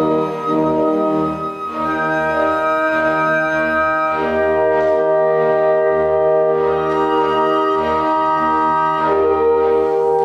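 Orchestra playing slow, held chords in which brass and wind tone dominates; the chord changes a few times, about two and four seconds in and again near the end.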